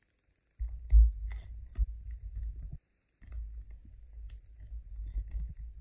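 Yellow padded bubble mailer being handled and opened: paper rustling and crinkling with scattered clicks over a low rumble, a knock about a second in, and a brief pause just under three seconds in.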